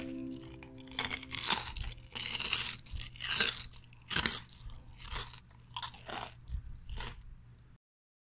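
Crisp, crackly crunching of deep-fried battered nian gao being bitten and chewed. It comes as a string of irregular crunches, about one every half second to a second, and stops suddenly near the end.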